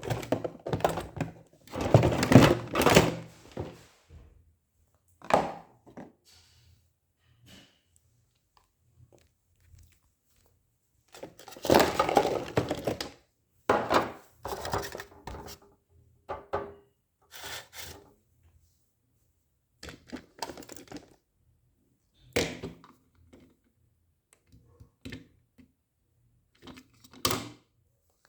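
Irregular thunks and knocks, some in quick clusters and some single, with quiet gaps between.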